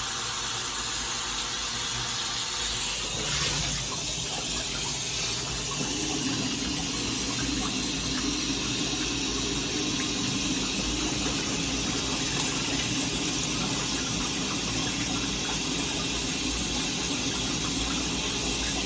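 Shower water running steadily from a shower head through a micro-bubble system, coming out milky white; a low steady hum joins about six seconds in.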